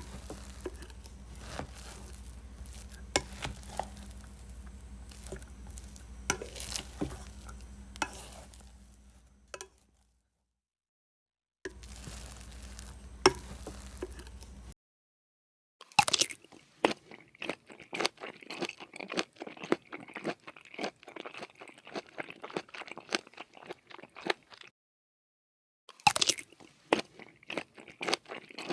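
Eating sounds close to the microphone: scattered clicks over a low steady hum at first, then, after brief cuts to dead silence, rapid crunchy chewing of food.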